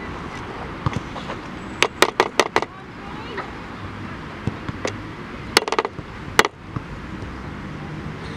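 Outdoor football-pitch background with faint voices, broken by two quick runs of sharp clicks: about five in quick succession some two seconds in, and another handful around six seconds in.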